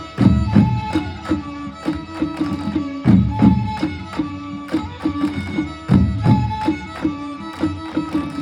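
Manipuri pung drums played together in a fast traditional rhythm. The strokes ring at clear pitches, and the phrase repeats about every three seconds.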